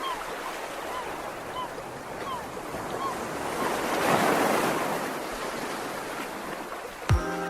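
Sea waves washing on a shore, one wave swelling to a peak about halfway through and then ebbing, with short high chirps repeating about twice a second. Music with sharp hits cuts in just before the end.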